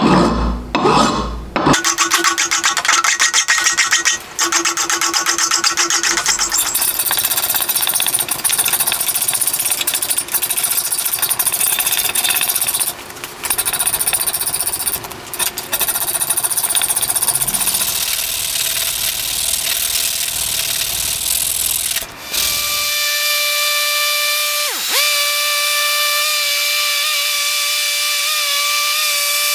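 Power tool grinding or sanding the steel head of an old hatchet: a loud, gritty, rapidly pulsing noise, broken by several abrupt cuts. Over the last several seconds it gives way to a steady high whine, which dips sharply in pitch once and recovers.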